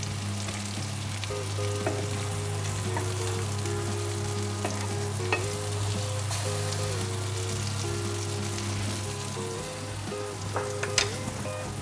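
Lentil patties frying in hot vegetable oil in a pan, a steady sizzle. A few light clicks of a wooden spatula against the pan as the patties are turned, the sharpest near the end.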